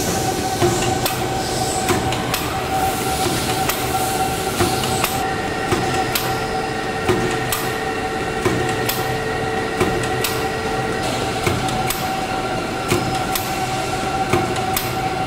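Folder-gluer machine with a double-sided tape applicator running: a steady mechanical drone with a high steady whine, broken by irregular sharp clicks and knocks as the cardboard blanks are carried through.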